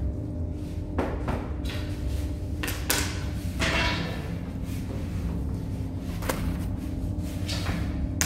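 Work sounds at a tandoor bread oven: a steady low rumble with a handful of sharp knocks and clatters, about one every second or two, a couple of them ringing on briefly.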